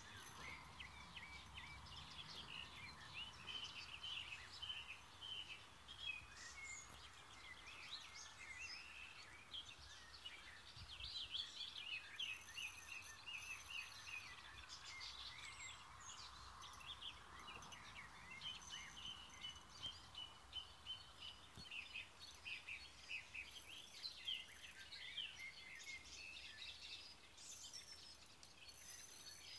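Faint chorus of songbirds, many short chirps and trills overlapping throughout, over a soft steady outdoor hiss.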